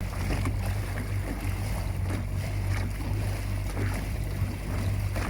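Boat motor running steadily at trolling speed, a low even hum, with wind and water noise over it.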